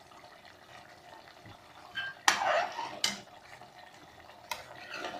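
Metal spoon knocking against the side of a metal pressure-cooker pot while stirring a curry: one loud clank about two seconds in with a brief ring, a second a moment later and a lighter one near the end, over a faint steady hiss.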